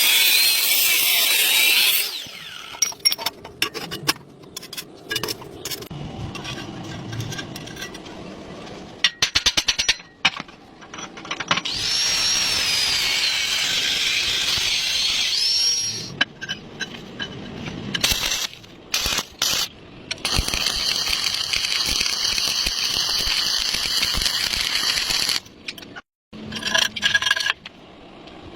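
Metalworking tool sounds: several stretches of steady, hissing power-tool noise, one with a wavering high whine, broken up by short knocks and clinks of metal.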